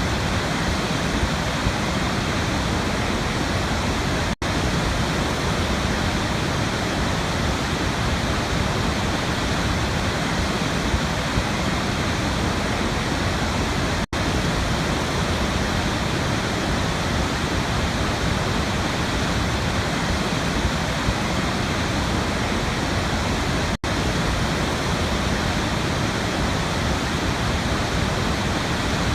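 Waterfall: a steady, dense rush of falling water. The sound drops out for a split second three times, about ten seconds apart.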